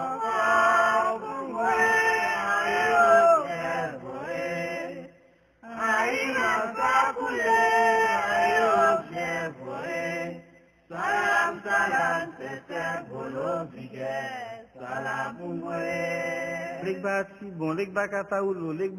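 A man chanting a Vodou prayer song unaccompanied, in drawn-out sung phrases with two short breaks, about five and eleven seconds in.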